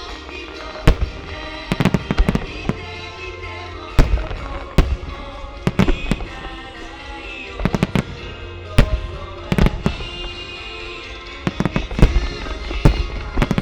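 Firework shells bursting overhead in a rapid, irregular barrage, with sharp booms about every second, some in quick clusters, over music playing.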